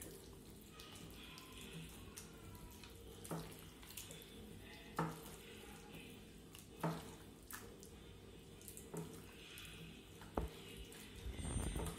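Hand squishing and mixing chicken pieces in a wet marinade in a glass bowl: faint wet squelching, with a short tap or click every second or two.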